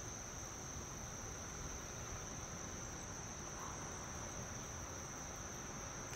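Steady, unbroken high-pitched insect chorus of crickets or similar singing insects, over a low, even background noise.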